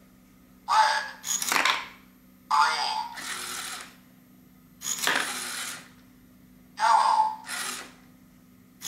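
LEGO Mindstorms EV3 colour sorter at work: short bursts of motor whirring as the turntable of bowls swings round, with Technic blocks clattering into the plastic bowls. There are about four sorting cycles, one roughly every two seconds, with quiet between them.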